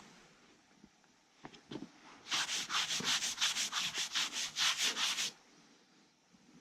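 Quick back-and-forth rubbing on a rough, hard surface, about four or five strokes a second for some three seconds, starting about two seconds in.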